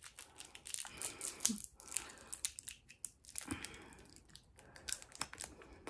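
A Toxic Waste sour candy's wrapper crinkling and tearing as it is unwrapped by hand: a run of quick, irregular crackles.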